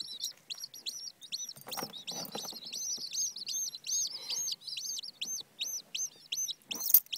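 Baby chicks peeping, several short high chirps a second without a break. A few soft rustling noises about two seconds in, and a brief sharp knock near the end.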